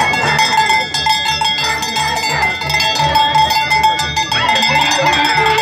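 Andean festival music: violin and harp playing a dance tune over a steady low beat of about two pulses a second, with a held bright tone ringing through.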